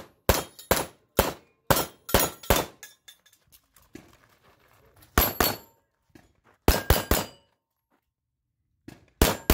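Pistol shots fired in quick strings at steel plate targets, each crack followed by the ring of steel: about six shots in the first few seconds, then a pause, then bursts of two, three and two shots.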